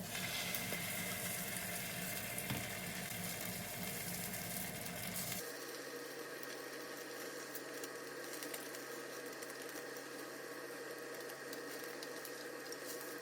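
Food sizzling in a frying pan, a steady hiss; about five seconds in the sound changes abruptly and the hiss becomes quieter.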